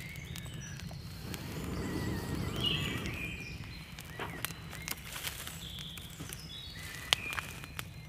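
Breath blown in long puffs into a smoking tinder-and-twig bundle over the first three seconds, as the bundle catches with scattered sharp crackles. Woodland birds sing throughout.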